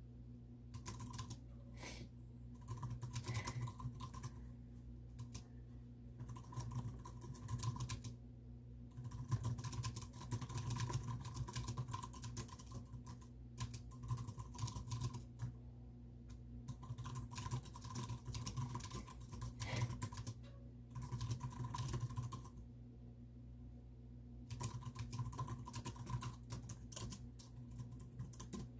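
Typing on a computer keyboard in quick runs of keystrokes, broken by short pauses, the longest about eight seconds in and again a few seconds before the end. A steady low hum runs underneath.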